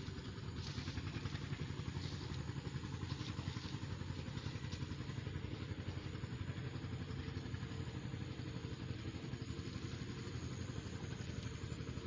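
An engine running steadily, with a fast, even pulse.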